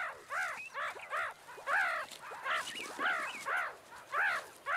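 Meerkat pup giving a rapid string of short, high-pitched begging calls, about two or three a second, each call rising and then falling in pitch.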